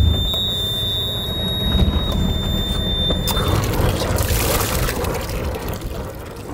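A sailing catamaran's inboard diesel engine starts and runs at idle, a low rumble. Water splashes from its wet exhaust at the hull. A steady high alarm tone, typical of the engine panel's buzzer before oil pressure builds, sounds over the start and stops about three and a half seconds in.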